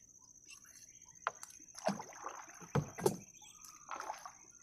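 A gill net being pulled by hand over the side of a small boat: water splashing and dripping off the net, with several sharp knocks against the hull.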